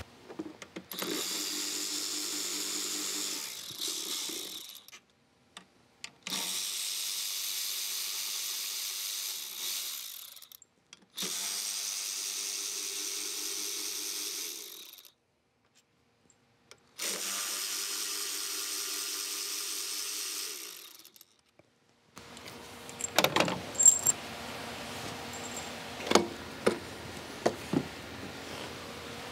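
Electric ratchet running in four separate bursts of about three to four seconds each, spinning out the throttle body bolts on a GM 3.6 V6. Near the end come scattered light clicks and knocks as the throttle body is lifted off.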